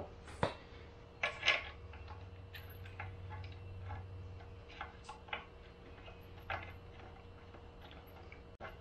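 Scattered light clicks and knocks as the pressure-washer pump is handled and seated against the engine, the strongest about half a second and a second and a half in, over a faint steady low hum.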